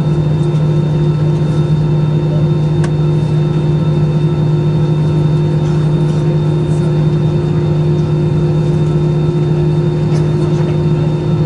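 An Airbus A320-214's CFM56-5B engines idling, heard from inside the cabin: a steady drone made of two low hums and a faint high whine, with no change in power.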